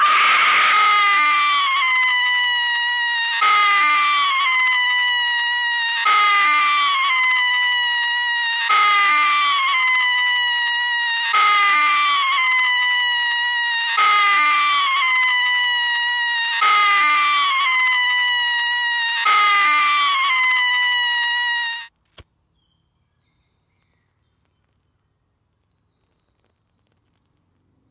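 A man's high-pitched scream, held and repeated in near-identical segments about every two and a half seconds. It cuts off suddenly about 22 seconds in.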